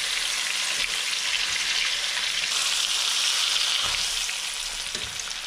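Breaded crucian carp frying in hot fat in a frying pan: a steady sizzle that eases slightly toward the end, with a few faint knocks near the end.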